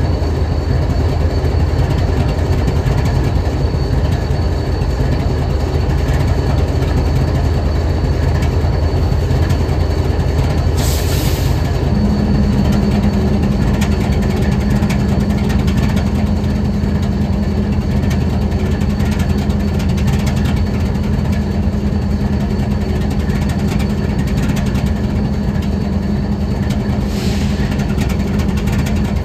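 Diesel-electric freight locomotive engine idling with a steady low rumble. About twelve seconds in, a steady higher-pitched hum joins it and holds. There are brief hisses of air near the eleven- and twenty-seven-second marks.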